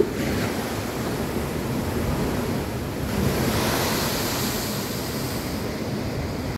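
Heavy sea swell breaking against a seawall: a steady rumble of surf, with a big wave crashing into spray, louder and hissier, about three to five seconds in.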